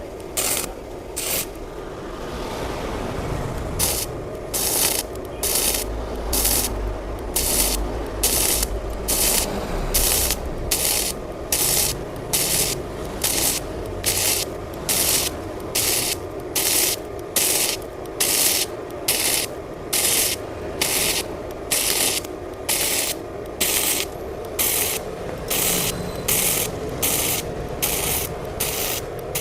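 Gasless flux-core MIG welding on stainless steel at about 110 A, stitch-welded: the arc crackles in short, evenly spaced bursts about every 0.7 seconds over the welder's steady hum.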